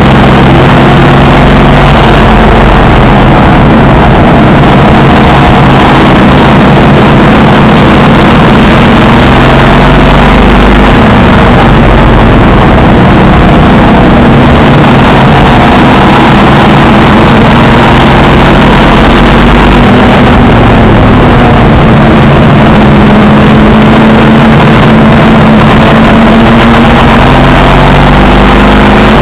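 Race car engine heard from inside the car under racing load, rising and falling in pitch through the laps. It is so loud that the recording is overloaded and distorted.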